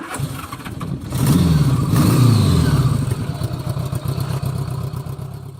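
Motorcycle engine running and being revved: the pitch climbs and falls back between about one and three seconds in, then it runs on more steadily and fades near the end.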